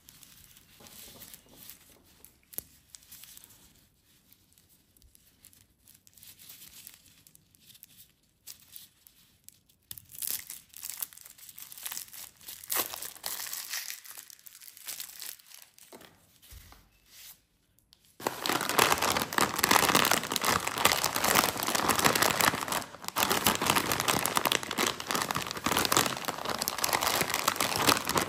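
Plastic candy wrappers crinkling in gloved hands, faint at first and louder from about ten seconds in as a lollipop wrapper is peeled off. About eighteen seconds in a much louder, dense crinkling starts as a snack chip bag is gripped and pulled open at the top.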